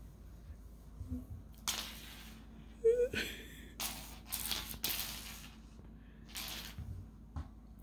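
A person's stifled, breathy laughter: several short, wheezy bursts of breath, with a brief squeak of voice about three seconds in.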